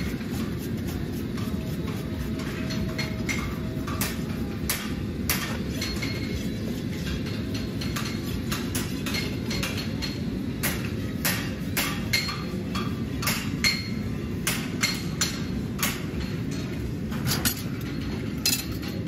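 Farriers' hammers striking steel horseshoes and anvils: irregular ringing blows, sometimes several in quick succession, over a steady low background rumble.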